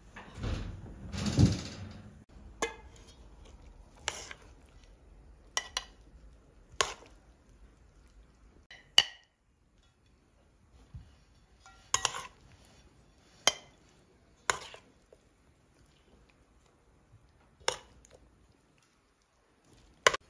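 Plates and serving dishes clinking as they are handled and set down on a table: about ten separate sharp clinks at uneven intervals, after a rustling scrape in the first two seconds.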